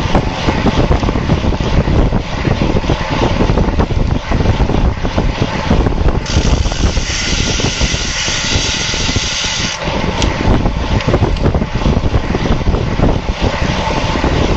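Wind rushing and buffeting over the microphone of a road bike at racing speed, with tyre and drivetrain noise underneath. Partway through, a brighter hiss joins for about three and a half seconds, then drops away suddenly.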